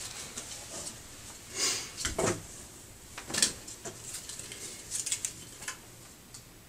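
Rustling of fabric and plastic packaging as a knit shirt is pulled out of a box and shaken open, in a few short crinkly bursts with a soft bump about two seconds in.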